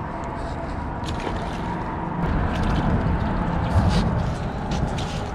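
Small waves lapping and gurgling among the rocks of a seawall, over a steady low rumble, a little louder in the middle.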